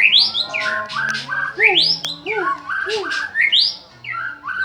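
White-rumped shama (murai batu) in full, loud song: a fast, varied run of rising whistles and quick chattering phrases, with a few short arched notes repeated lower down.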